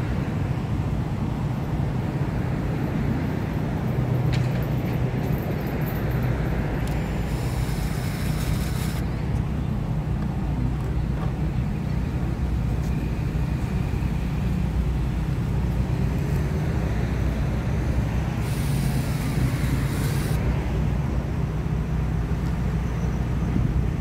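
Steady low drone of an engine running, with a cordless drill run in two short spurts, about 7 and 18 seconds in.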